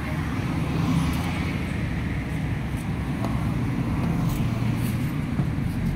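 A vehicle engine idling, a low, steady hum.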